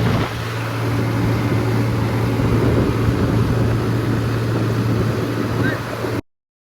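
Mahindra tractor's diesel engine running steadily with a deep, even hum. The sound cuts off suddenly near the end.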